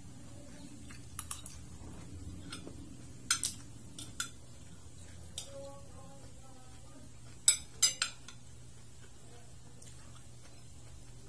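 Metal spoon and fork clinking and scraping against a plate while eating. Scattered sharp clinks, with the loudest run of three close together about three quarters of the way through.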